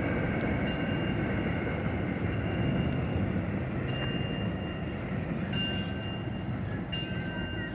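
New York City Subway train running on the track, a steady rumble with a wheel click over a rail joint about every one and a half seconds, each click followed by a brief high ringing tone.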